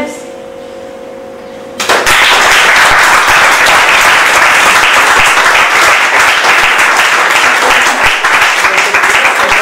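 A single held final note of a song rings on quietly for under two seconds. Then a small audience starts applauding, loud and steady, with brisk clapping to the end.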